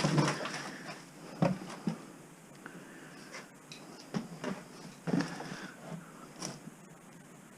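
Household clutter being handled and moved: scattered knocks and clicks with rustling, the loudest knocks at the start and about a second and a half in.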